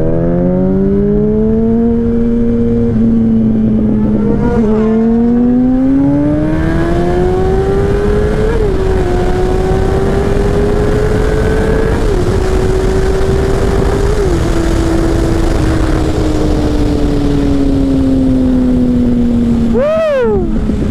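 Yamaha R1 sportbike's inline-four engine accelerating hard through the gears from the rider's seat: the pitch climbs in steps, dipping briefly at each upshift, then holds and slowly falls away as the throttle eases off near the end.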